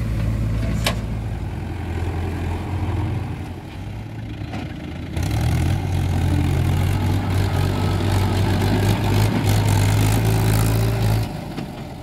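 Diesel engines of a farm tractor and a JCB 3DX backhoe running steadily while the backhoe digs. About five seconds in the sound changes to a louder, steady tractor diesel hauling a trolley loaded with mud, which falls away shortly before the end.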